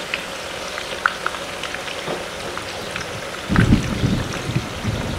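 Firm tofu deep-frying in hot oil in a pan: a steady sizzle with scattered crackling pops. About three and a half seconds in, a low uneven rumbling starts and becomes louder than the sizzle.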